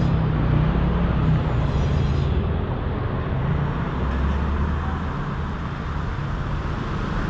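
Motor vehicle engine running steadily, with a low hum and road traffic noise.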